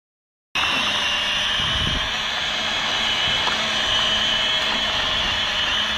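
Arrma Felony 1/7-scale RC car's brushless electric motor whining steadily at speed, with tyre noise on asphalt; it starts suddenly about half a second in.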